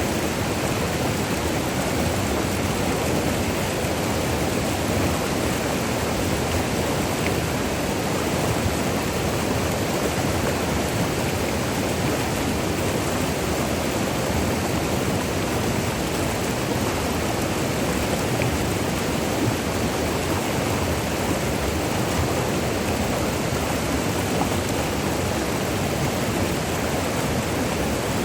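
River water rushing over falls and rapids in a steady, unbroken roar of white water.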